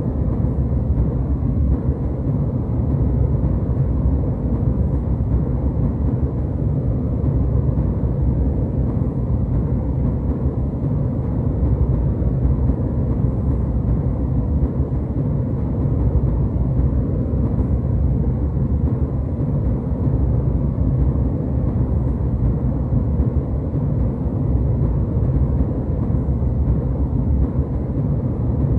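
Jet airliner cabin noise in cruise: a steady, deep rumble of engine and airflow.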